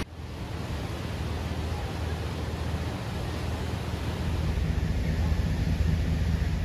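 Floodwater rushing in a swollen river: a steady, deep rushing noise that swells slightly about two thirds of the way through.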